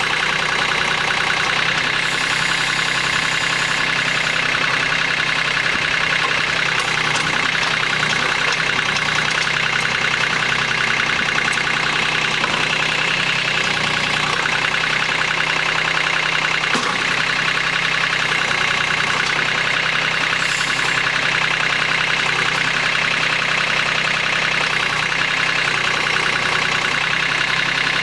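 Cub Cadet Yanmar EX3200 compact tractor's diesel engine running loud and steady at a constant speed while working the backhoe.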